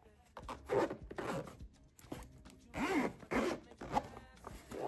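Zipper on a GoPro camera carrying case being pulled open around the case in a series of short zipping strokes.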